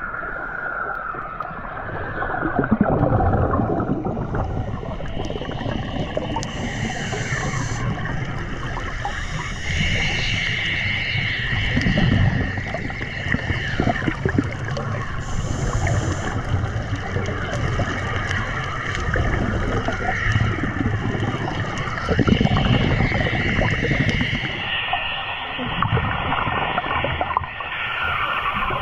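Underwater recording of scuba diving: gurgling bubbles from a diver's regulator come in surges every several seconds over a continuous water hiss, with a steady high whine in the background.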